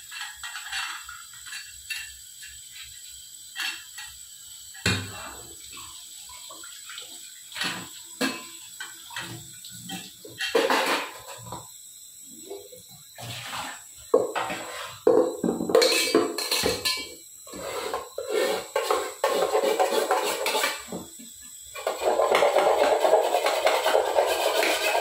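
Steel and aluminium utensils clanking and scraping against each other and the steel sink as they are scrubbed under a running tap. Near the end, louder steady rushing of tap water into and over an aluminium pot as it is rinsed.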